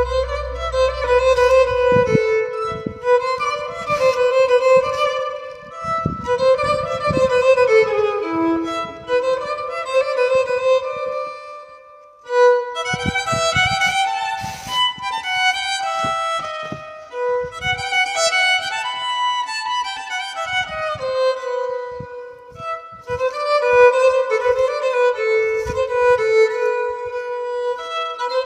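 Background music led by a violin playing a melody, with a brief pause about twelve seconds in.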